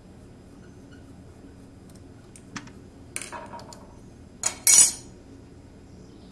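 Small metal parts clinking: a few light clicks, a ringing clink about three seconds in, then a loud metallic clatter about four and a half seconds in. The sound comes as the motor's sheet-metal junction-box cover is taken off and handled.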